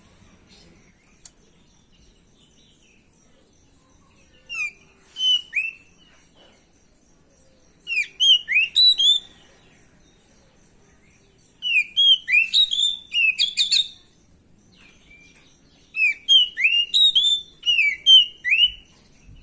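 Oriental magpie-robin (kacer) singing in four bursts of quick, sweeping whistled notes, with pauses of about two seconds between bursts.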